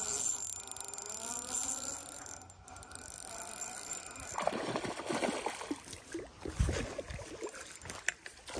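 Shimano Sienna spinning reel being cranked, a whirring that wavers in pitch, for the first two seconds or so. Then comes the clatter and rustle of rod and tackle being handled, with a thump about six and a half seconds in.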